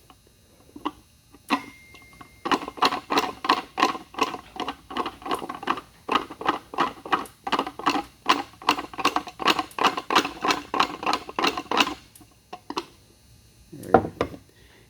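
A handmade rotational-inertia puzzle box, with a loose heavy steel disc inside, being rapidly twisted and stopped in the hands. This makes a fast, even run of sharp knocks and clatters, about three a second, which stops near the end before one louder knock.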